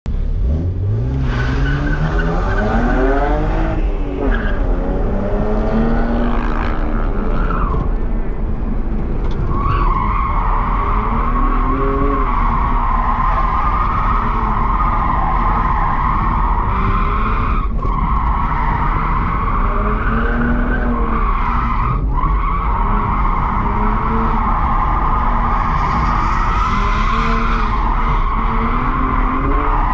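BMW 135i's turbocharged straight-six revving up and down as the car drifts, with its worn Hankook RS3 tyres squealing continuously. The squeal is strongest from about ten seconds in and briefly drops out twice during the transitions between drifts.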